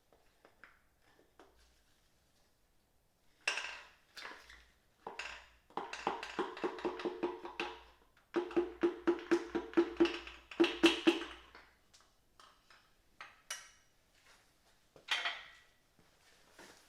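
Rapid tapping, about five ringing knocks a second in two runs with a few single knocks before and after: a piston being tapped out of its bore in the BMW S52 engine block.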